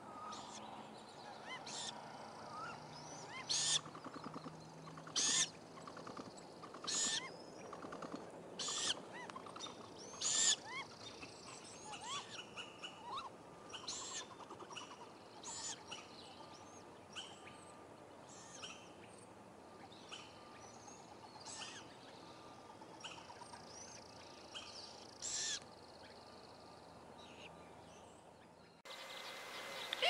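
Great grey owls calling at the nest: short, harsh screeching calls repeat about every two seconds, then continue more softly after about ten seconds. Small birds chirp in the background.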